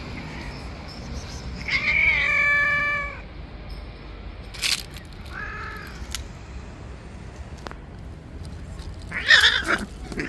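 Stray cats yowling: one long, steady call about two seconds in and a shorter call around five seconds. Near the end comes a loud, harsh, rasping burst, the loudest sound here, with a few sharp clicks in between.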